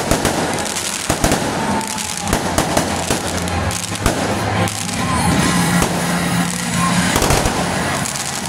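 Aerial fireworks bursting overhead in a rapid, continuous series of bangs and pops.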